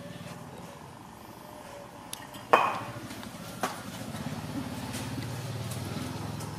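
A single sharp knock of something hard being struck about two and a half seconds in, with a couple of fainter clicks around it. From about four seconds a steady low hum sets in.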